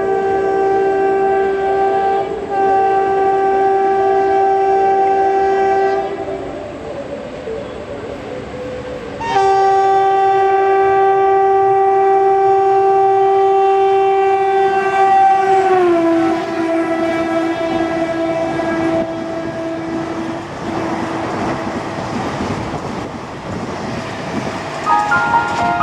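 WAP4 electric locomotive sounding its horn in two long blasts as an express train passes at speed. The pitch of the second blast drops about sixteen seconds in as the locomotive goes by, and the horn carries on lower over the clatter of the coaches' wheels over the rail joints.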